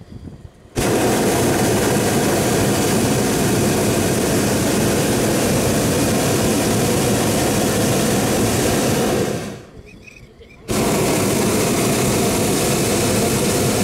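Hot air balloon's propane burner firing in two long blasts: a steady loud roar that cuts in abruptly, runs for about nine seconds, stops, and fires again about a second later.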